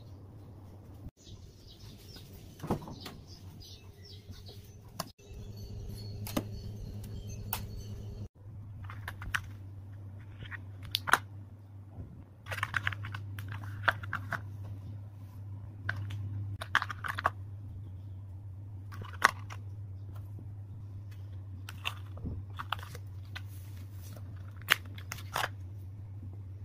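Scattered light clicks, taps and brief scrapes from a clear plastic candy mould being handled as chocolate mushroom sweets are prised out of it and dropped into a ceramic bowl, over a steady low hum.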